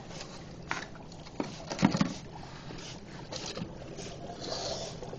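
Water bubbling and sloshing inside the box of a fog-making sculpture, with a few knocks, the loudest about two seconds in.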